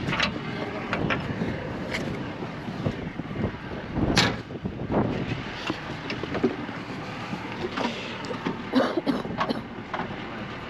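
Scattered knocks and clanks over a steady low rumble, the loudest a single sharp knock about four seconds in, with a quick run of them near the end.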